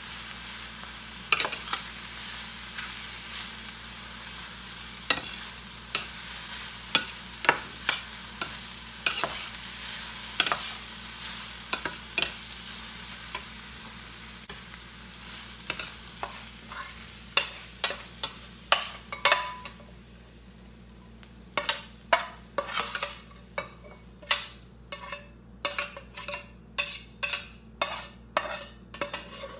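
Stir-fried vegetable filling sizzling in a stainless steel skillet with the burner just switched off, the sizzle dying away over about twenty seconds while a metal spoon stirs and clicks against the pan. Near the end the sizzle is gone and the spoon knocks and scrapes repeatedly as the filling is scooped out into a glass bowl.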